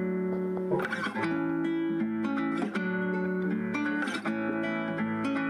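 Background music on acoustic guitar: strummed and plucked chords, held and ringing, at an even pace.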